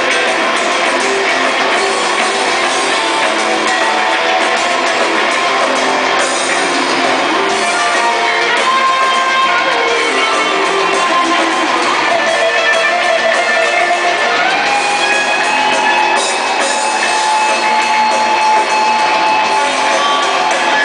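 Live heavy metal band playing loud, with bass, drums and distorted electric guitars. From about halfway through, an electric guitar plays held, bending lead notes over the band.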